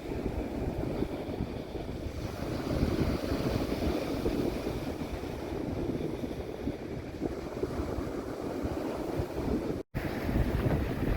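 Wind buffeting the microphone over the wash of waves on the shore, a rough, uneven rush that drops out for an instant near the end.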